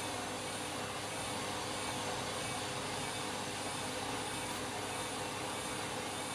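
Candy washing machine running its drum with a steady motor hum and whir, spinning a load of bedding and towels that is badly out of balance.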